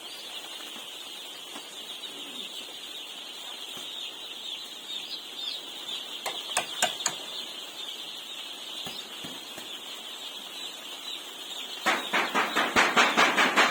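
A flock of poultry chicks peeping steadily and densely. About two seconds before the end, a louder run of quick, even pulses starts, about six a second.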